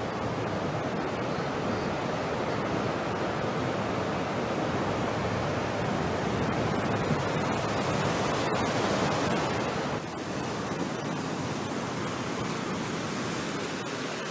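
Steady wash of ocean surf, dipping slightly in level about ten seconds in.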